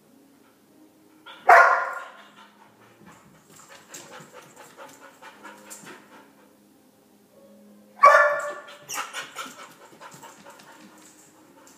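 A dog left alone in the house barks loudly twice, about six seconds apart, each bark followed by a run of softer, quicker sounds: distress barking typical of separation anxiety.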